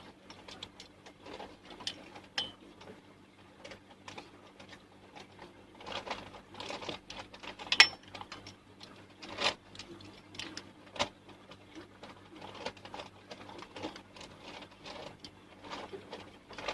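Scattered clicks and knocks of a ring light and its stand being handled and fitted together, with a sharper click about eight seconds in, over a faint steady hum.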